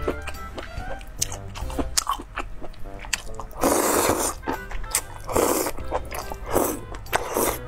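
A person slurping saucy noodle strands off chopsticks, with four loud slurps from about three and a half seconds in, and chewing and small mouth clicks before them. Background music plays throughout.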